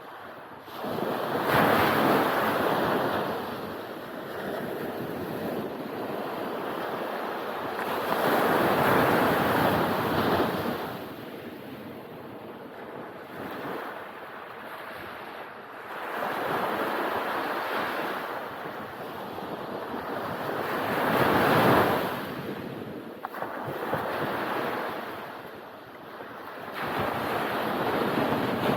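Ocean surf breaking on a beach: waves rush in and wash back in repeated surges, each swelling up and fading over a few seconds, about every five to seven seconds.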